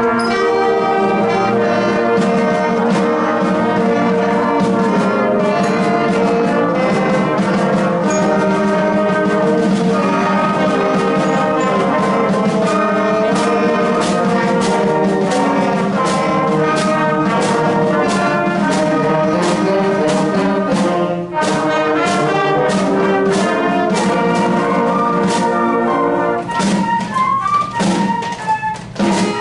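Student concert band of middle and high school players, led by brass with drums keeping a steady beat, playing a medley of familiar patriotic Americana tunes. The sound dips for a moment about two-thirds of the way in, and the playing grows more broken up near the end.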